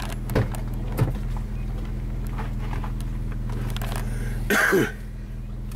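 Car engine idling, heard from inside the cabin as a steady low hum with a few light clicks. About four and a half seconds in there is a brief louder sound, after which most of the engine hum drops away.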